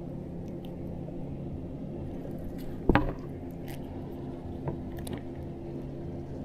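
Hands handling a freshly caught crappie and working the hook free, with one sharp knock about three seconds in and a couple of faint clicks later, over a steady low hum.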